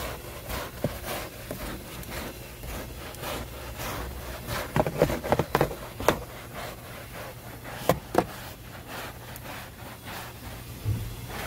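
A small hand brush scrubbing foam-soaked carpet in quick, uneven back-and-forth strokes, a rubbing, scraping sound. The strokes come thickest about five seconds in, with two sharper strokes a little before the end.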